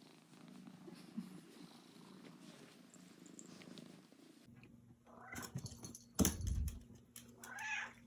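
Domestic cat purring steadily and close up. In the second half, two short higher calls and a sharp knock.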